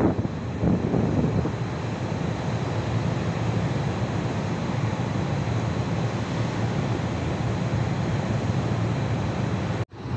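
Wind rushing over the microphone, a steady low rumbling noise, which cuts out abruptly for a moment near the end.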